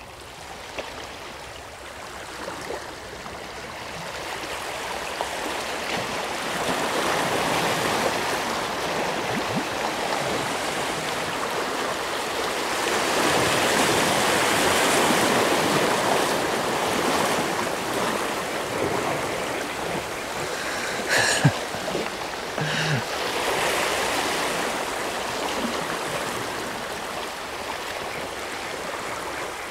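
Small waves washing and lapping over the rocks at the water's edge, a steady rush of water that swells and fades. Two short sharp sounds come about 21 and 23 seconds in, the first the loudest moment.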